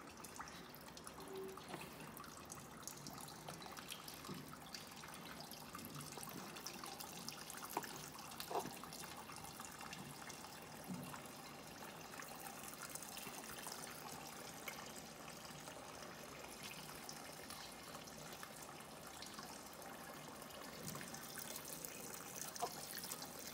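Diesel fuel trickling faintly and steadily from the open sediment bowl housing of a John Deere 720's fuel system into a flexible funnel, as the tank is drained.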